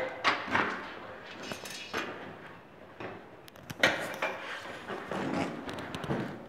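Irregular knocks, scrapes and clatter of hand work with tools and materials. The sharpest knocks come right at the start and about four seconds in.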